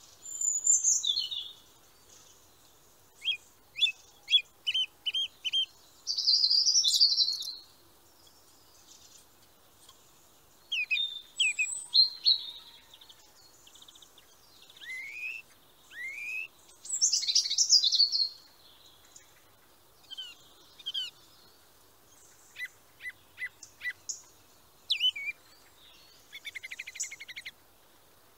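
Songbirds calling and singing in separate phrases with short quiet gaps between them. The phrases include runs of quick high chirps, a couple of rising whistled notes and a fast trill near the end.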